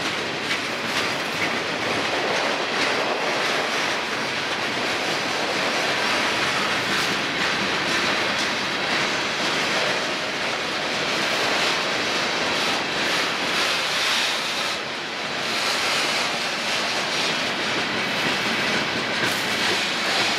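Freight cars of a mixed freight train rolling past: a steady rumble and rattle of steel wheels on the rails.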